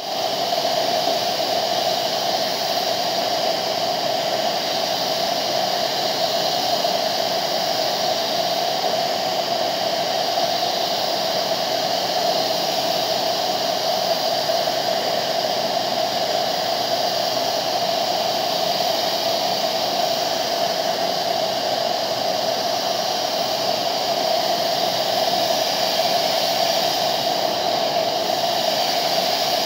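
Compressed-air paint spray gun hissing steadily as it lays clear coat on a car body, an even rushing of air with no breaks.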